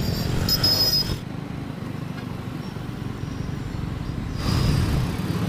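Road traffic heard while moving through city streets: a steady low rumble of engines and wind on the microphone, with a brief high squeal about half a second in.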